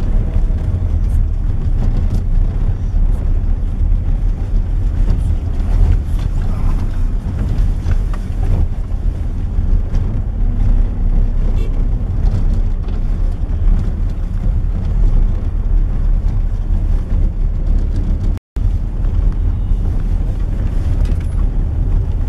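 Steady low rumble of a car's engine and tyres heard from inside the cabin as it drives up a snowy road on tyres fitted with snow chains. The sound cuts out for a split second about eighteen seconds in.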